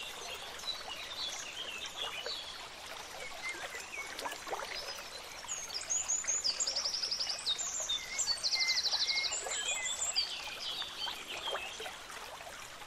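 Several small birds chirping and calling, with two rapid high trills a little after the middle, over a soft steady hiss.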